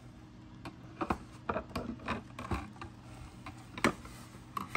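Scattered light clicks and knocks of a plastic RC sailboat and its plastic display stand being handled as the keel is fitted onto the stand, with a couple of louder clicks near the end.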